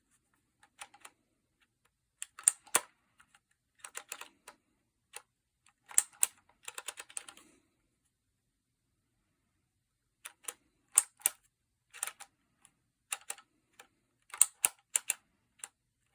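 Phomemo E975 handheld embossing label maker in use: the letter wheel clicking as it is turned and the handle snapping as each letter is punched into the tape. The clicks come in irregular bursts, with a pause of about two seconds midway.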